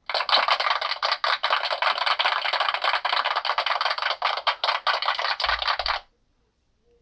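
Harsh scraping, rattling noise lasting about six seconds, then cutting off abruptly.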